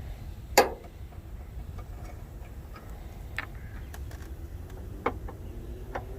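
Scattered sharp clicks and knocks of work on the engine bay, the loudest about half a second in, over a steady low hum.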